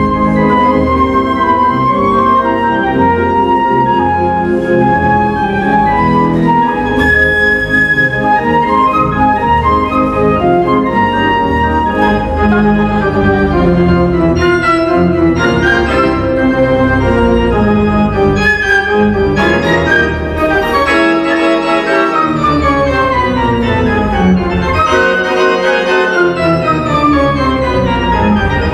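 Flute playing a melody over keyboard accompaniment, with fast descending runs of notes near the end.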